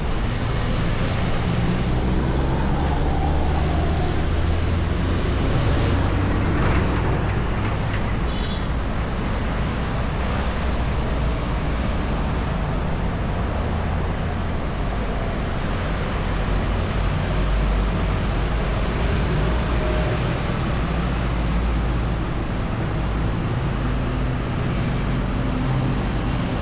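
Steady traffic on a busy city main road: a continuous stream of motorbikes and cars passing, with engine rumble and tyre noise on asphalt.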